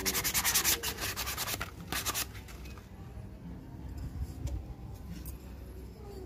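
Quick rubbing strokes along a wooden fishing-rod blank, about eight a second, for roughly two seconds; after that only faint handling ticks.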